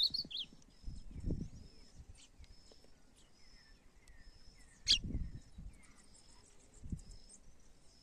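Small songbirds calling: a quick burst of high chirps at the start, then faint short high call notes repeating about twice a second with a few soft falling notes. A single sharp click comes about five seconds in, and low rumbles sound now and then.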